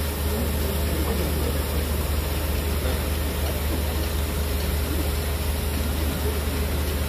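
Engine of a ride-on boom sprayer running steadily as it drives along the field rows spraying, a constant low rumble with an even hiss over it.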